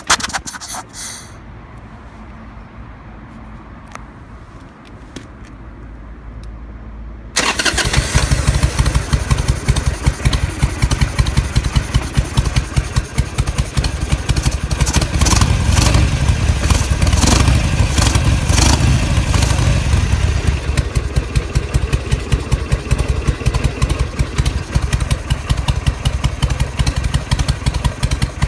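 Harley-Davidson Sportster 883's air-cooled V-twin, cold, in a cold-weather carburetor spit-back video: quiet for the first seven seconds or so, then suddenly starting and running with a loud, pulsing beat, a little stronger for a few seconds in the middle.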